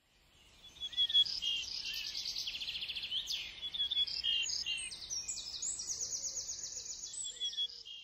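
Several songbirds singing at once: overlapping high chirps and rapid trills, fading in over the first second.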